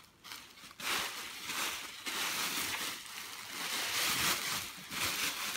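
Large bubble wrap crinkling and rustling as it is pulled off a framed painting, starting about a second in and going on in uneven waves.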